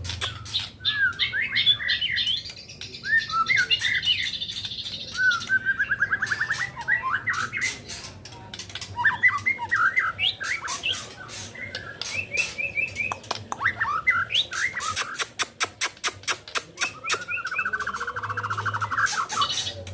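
White-rumped shama (murai batu) singing a varied song of short whistled notes, two long buzzy trills and rapid runs of sharp clicks.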